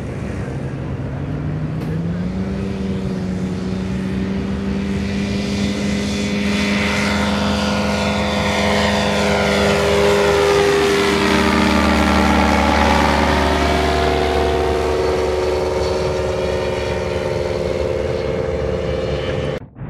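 Rotax 582 two-stroke twin engine of a modified Robertson B1-RD ultralight running at power as the plane flies past. The revs rise about two seconds in, the note is loudest around the middle as it passes overhead, then it drops slightly in pitch as the plane flies away, cutting off abruptly near the end.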